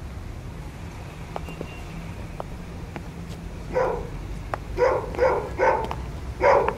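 A dog barking, a run of about five short barks beginning a little past halfway, over a steady low rumble of background noise.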